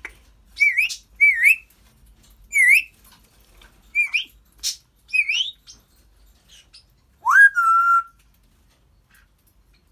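African grey parrot whistling: five short whistles that each dip and then rise, about one a second, with a brief click among them. About seven seconds in comes one longer whistle that rises and then holds.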